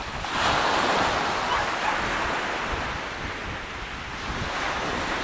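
Waves breaking on the beach: a surge of surf about half a second in that lasts a couple of seconds, and another building near the end, with wind on the microphone.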